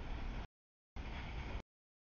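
Double-stack container freight train rolling past, a steady low rolling noise of its wheels on the rails. The sound cuts out abruptly about half a second in, returns near one second, and cuts out again shortly before the end.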